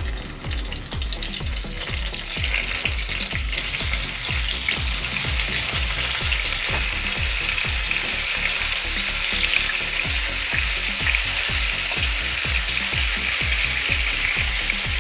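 Masala-stuffed brinjals sizzling in hot oil in a frying pan as they are laid in one by one. The sizzle grows louder about two seconds in, then holds steady.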